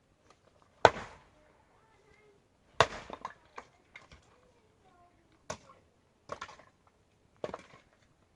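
A series of sharp knocks or blows, about seven at irregular intervals, the loudest about a second in.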